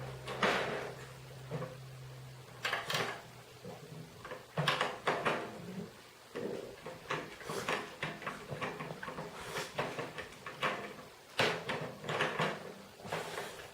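Irregular clicks, knocks and light rattles of hands working on a snare drum while its snare wires and strainer are adjusted. A low steady hum runs under the first few seconds and stops.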